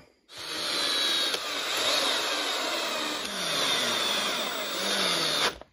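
Cordless electric screw gun running, driving the mount screws of an RC car's center differential, its motor pitch sliding a little as the screws tighten. The screws are run down short of tight, to be finished by hand driver.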